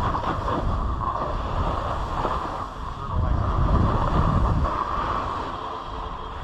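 Snowboard edges scraping and hissing over crusty, chopped-up snow while riding downhill, mixed with heavy wind rumble on the microphone. The noise rises and falls, easing a little about two and a half seconds in and again near the end.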